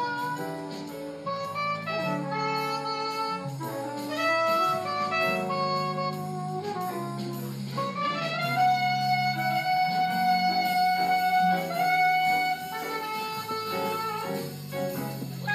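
Slow jazz ballad: a tenor saxophone plays the melody in long held notes over a band accompaniment.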